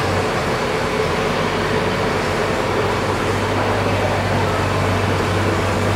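1940 Chevrolet stake bed truck's engine running steadily with a constant low hum.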